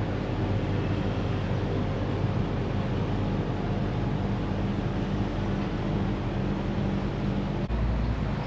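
Steady drone of vehicle engines and road traffic, with a low engine hum.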